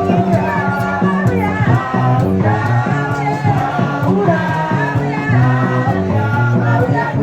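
Gospel music with a group of voices singing over a band with bass and drums.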